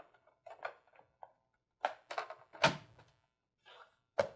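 Refrigerator top hinge cover being set in place and pressed down onto the cabinet: a run of light clunks and clicks, with the loudest thunk about two and a half seconds in and another sharp click near the end.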